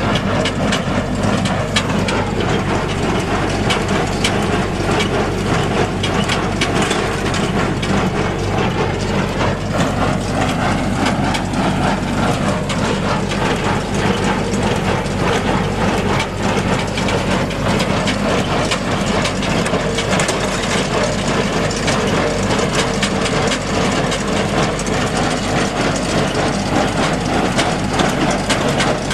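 Massey Ferguson 1837 inline small square baler running behind a tractor: a steady engine drone under the continuous rapid clatter of the baler's gears and mechanism.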